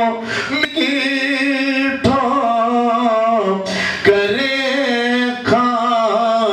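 A man singing solo, holding long notes with a wavering pitch, broken by a few brief pauses.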